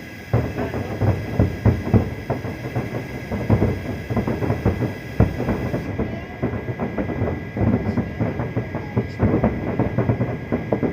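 Fireworks going off in rapid succession: a dense, continuous run of bangs and crackles, several each second.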